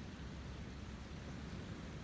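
River water rushing steadily, a constant even noise with most of its weight in the low end.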